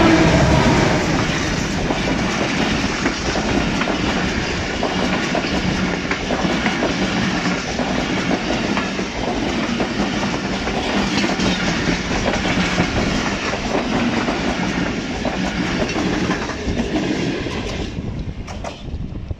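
A diesel locomotive, PHA-20-8312, passes close by with its engine loudest at the start. Its passenger coaches follow with a continuous rumble and clickety-clack of wheels over the rail joints, which drops off near the end as the last coach goes by.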